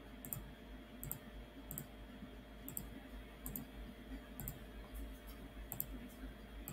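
Computer mouse clicking, faint, about once a second, each click a quick pair of ticks from press and release, over a low electrical hum.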